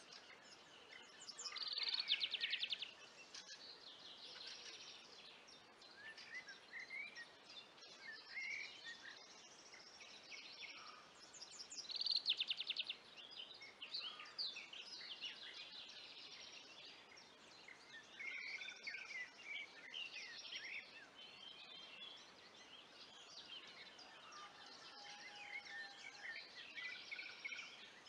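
Songbirds singing in woodland: a mix of chirps and whistled phrases throughout, with a loud, fast trill about two seconds in and again at around twelve seconds.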